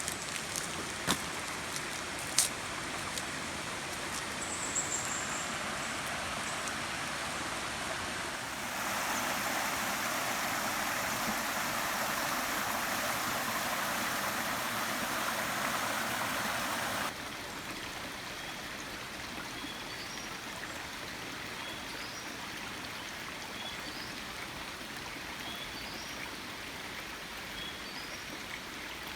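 Steady rush of running water. It is louder for several seconds in the middle and then drops back suddenly, with a few sharp clicks near the start and short, repeated bird chirps in the later part.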